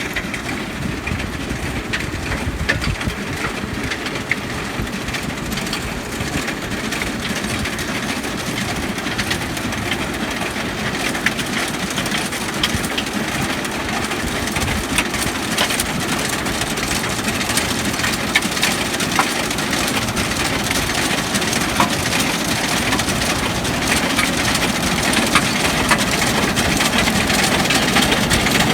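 Hattat tractor running and working a stone-picking machine, with a steady engine drone under constant clacking and rattling of stones in the picker. The noise grows slowly louder toward the end.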